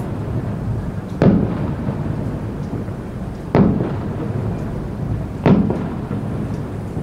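Aerial firework shells bursting: three loud booms about two seconds apart, each with a rumbling tail, over a steady low rumble between them.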